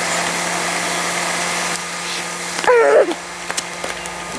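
Battery-powered bubble machine's fan motor running with a steady hum and hiss that eases a little about two seconds in. A short, high, wavering cry cuts across it about three seconds in, followed by a few light clicks.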